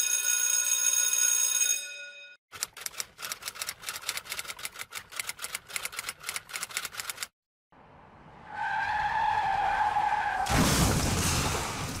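Three separate sound effects in a row. First a bright ringing tone with many overtones that cuts off after about two seconds, then a fast run of clicks lasting about five seconds. Near the end comes a wavering squeal, joined by a loud rushing noise.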